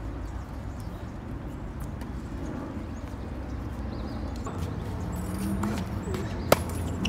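One sharp crack of a tennis racket striking the ball on a flat serve near the end, over a steady low outdoor background with a few faint ticks.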